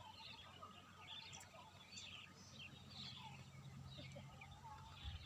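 Faint birdsong: many short, quick chirps and twitters from several birds, over a faint low steady hum.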